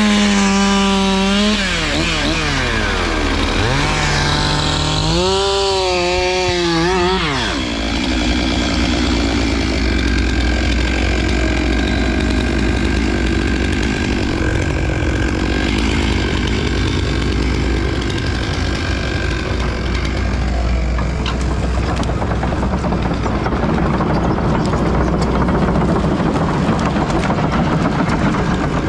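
Two-stroke Stihl MS 461 chainsaw held at high revs, dropping to idle, then revving again with a wavering pitch before falling away about seven seconds in. Underneath, a heavy machine's engine runs steadily throughout.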